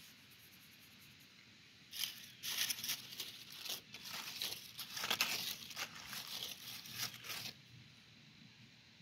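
Dry fallen leaves rustling and crackling, handled or trodden close to the microphone. An uneven run of crisp crackles starts about two seconds in and stops suddenly near the end.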